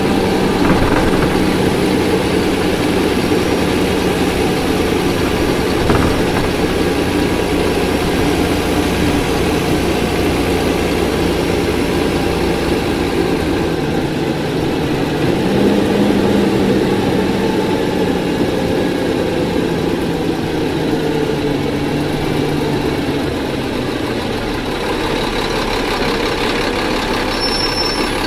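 Cummins ISC 8.3-litre diesel engine of a Nova Bus RTS transit bus running under way. Its note holds steady, dips about halfway, climbs again soon after, then falls away gradually. A brief high-pitched squeal comes near the end.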